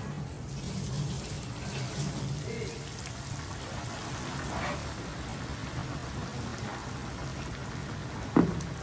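Hot oil sizzling and crackling steadily as squid deep-fries, with a sharp knock near the end.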